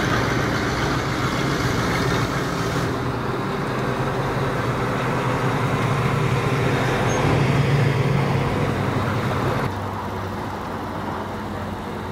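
Engine of a custom Pontiac street rod running as the car drives slowly past. The low, steady engine note grows louder about eight seconds in, then drops suddenly to a quieter vehicle sound near the end.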